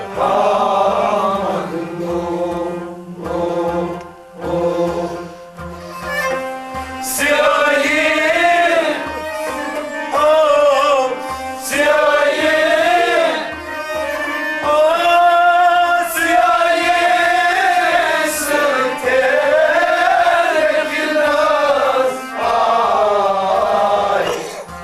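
A man singing a Kashmiri Sufi song in long, wavering melodic lines over instrumental accompaniment, with a hand drum keeping a steady beat.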